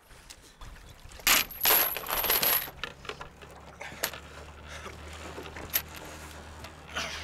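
Metal padlocks and restraints clinking and rattling, loudest in a burst of clattering from about one to three seconds in, with a few sharp clicks after.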